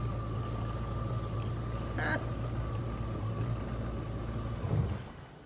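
Jet ski engine running at low speed with a steady low hum, then cutting out near the end.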